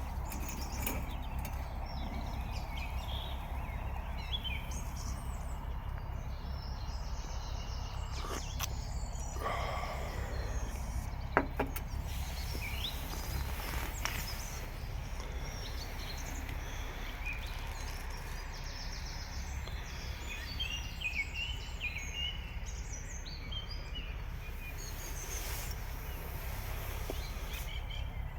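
Outdoor ambience: a steady low rumble with small birds chirping here and there, and a few short clicks, one sharp and loud about eleven seconds in.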